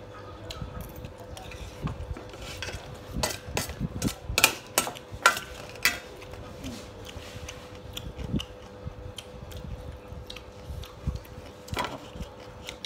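Metal spoon and chopsticks clinking and scraping against a stainless steel tray of fried noodles. The clinks are scattered, with a quick run of sharp ones in the middle, over a faint steady hum.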